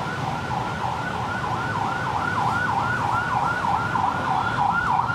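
An emergency vehicle's siren in a fast yelp, its pitch sweeping up and down about four times a second and slowly getting louder, over a low traffic rumble.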